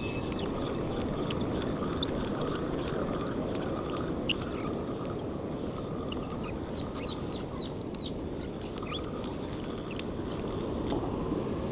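Steady rushing of wind and surf on the open sea, with many short high chirps scattered throughout.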